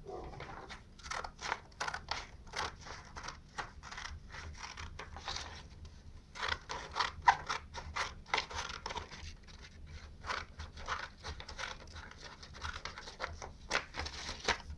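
Scissors snipping through a sheet of paper in many short, uneven cuts, with the paper rustling as it is turned between them.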